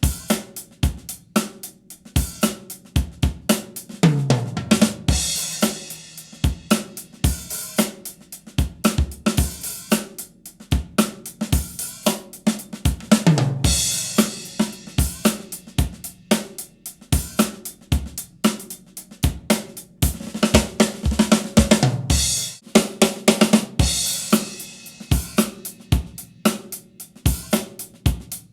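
Instrumental stretch of a song with drums to the fore: a steady beat of kick, snare and hi-hat with cymbal crashes, and a falling-pitch fill twice, a few seconds in and near the middle. It is played back through a compact nearfield studio monitor and picked up by a single microphone.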